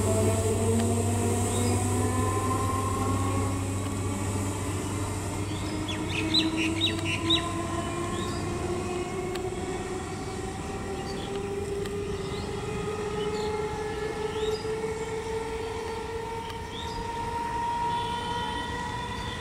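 ICF-built electric multiple unit local train running, its traction motors whining in several tones that rise slowly and steadily in pitch as the train gathers speed, over a low electrical hum that fades in the first few seconds. A short run of sharp clicks comes about six seconds in.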